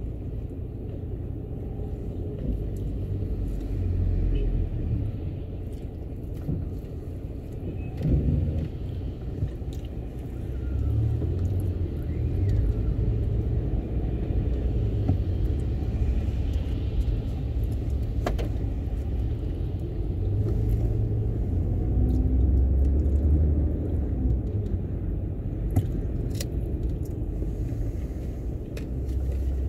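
Low, uneven rumble of a car's engine and tyres heard from inside the cabin while driving slowly on a wet road, with a few faint clicks.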